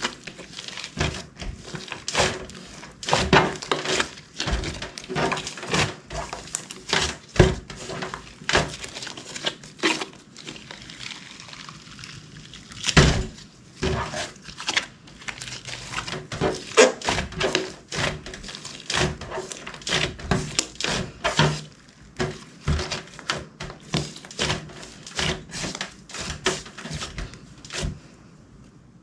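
Clear slime being mixed and squished, giving irregular sticky pops and clicks, a few each second, that stop near the end.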